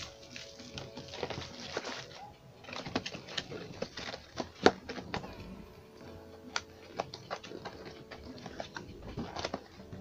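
Plastic packaging crinkling and rustling as it is handled, with scattered sharp clicks and taps. The loudest click comes a little before the middle.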